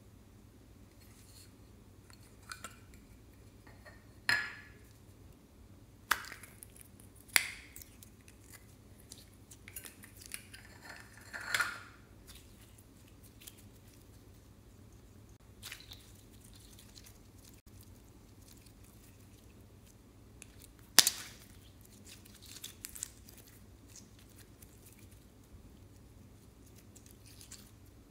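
Orange glitter slime being stretched, pulled apart and folded by hand, giving scattered sticky pops and clicks, with the sharpest snap about three-quarters of the way through.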